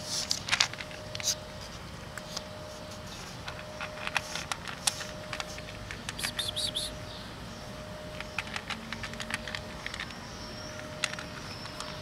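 Cat chewing dry kibble: irregular bursts of crisp crunching clicks, coming in clusters with short pauses between.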